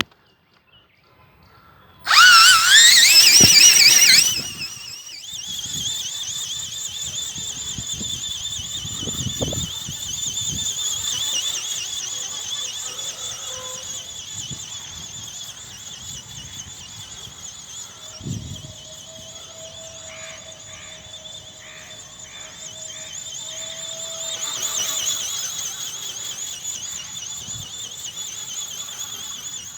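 Small electric motor and gearbox of a flapping-wing ornithopter model, whining at a high pitch. About two seconds in it comes on loudly with a rising whine for two seconds, then settles into a quieter, steady, wavering whine that swells again near the end.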